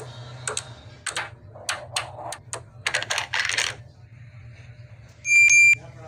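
Small magnetic balls clicking and clattering as magnetic-ball pieces are snapped onto a model, a quick run of sharp clicks. About five seconds in comes a loud, short electronic beep lasting about half a second.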